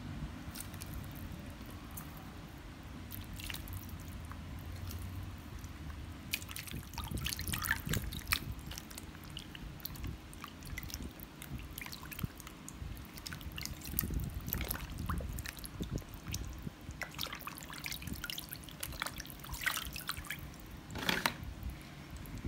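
Water splashing and dripping as raw pork ribs are rubbed and rinsed by hand in a plastic basin of water. The splashes come irregularly, starting a few seconds in, over a low background hum.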